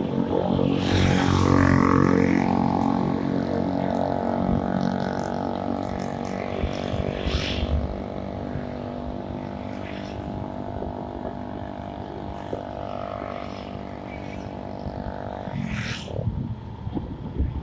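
Engine of a moving vehicle running steadily, a droning hum that drops away suddenly near the end, leaving road and wind noise.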